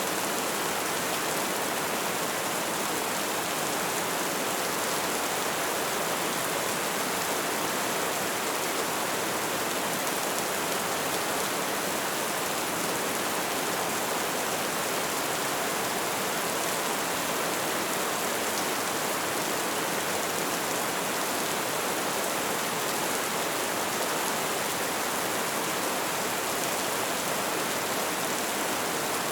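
Light rain falling, a steady even patter with no single drops or other sounds standing out.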